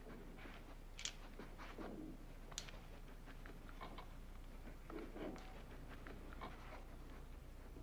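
Quiet room with a low steady hum: soft footsteps and the scuffle of a guide dog moving over the floor, with two small sharp clicks about a second and two and a half seconds in.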